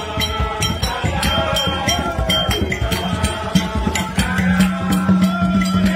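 Music with a fast, steady hand-percussion beat and a moving melody, a low sustained bass note coming in strongly about four seconds in.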